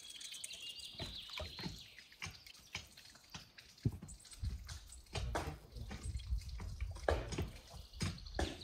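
Liquid poured into a glass mixing bowl of batter, then a silicone spatula stirring and tapping against the glass in a run of small clicks. A low rumble runs through the second half.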